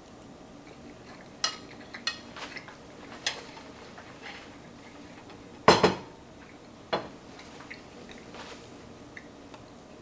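Fork and dinner plate clinking in a few light taps, then a louder clatter of the plate about six seconds in and one more knock about a second later.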